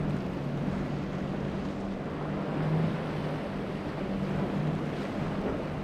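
Flybridge sportfishing boat's engines running under way through rough inlet waves, a low drone that wavers in and out, over a steady rush of breaking surf and wind.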